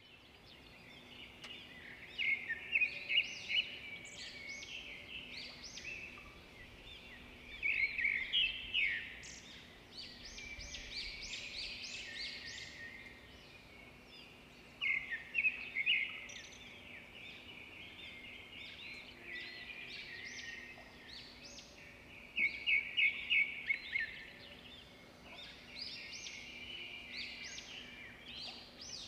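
High-pitched chirping calls of small animals coming in bursts of quick repeated notes, several times over, with a faint steady low hum underneath.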